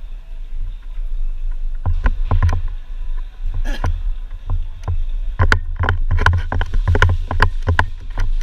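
Irregular sharp clicks and knocks, coming thicker in the second half, over a steady low rumble on the microphone.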